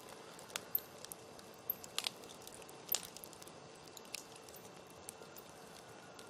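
Wood campfire crackling: irregular sharp pops and snaps, a dozen or so, the loudest about two and three seconds in, over a soft steady hiss of the burning fire.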